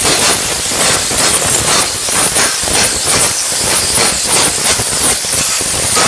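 Flux-cored arc welding on stainless steel: the arc hisses and crackles steadily.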